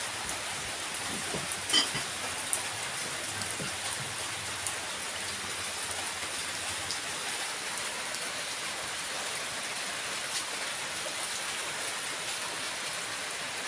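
Steady rain, an even hiss, with a couple of light knocks about two seconds in.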